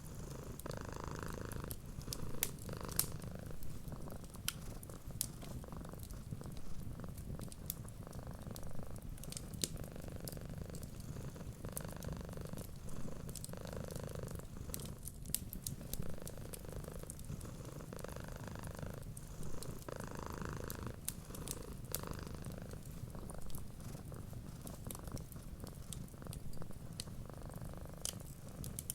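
Domestic cat purring steadily, its rumble swelling and easing with each breath every second or two, over scattered sharp pops and crackles of a wood fire.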